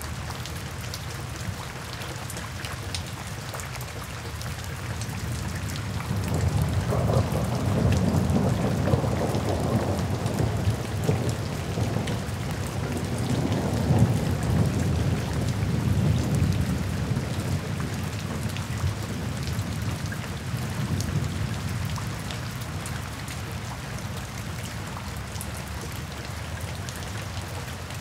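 Steady rain falling. About six seconds in, a long roll of thunder rumbles in; it swells twice and fades away over some fifteen seconds.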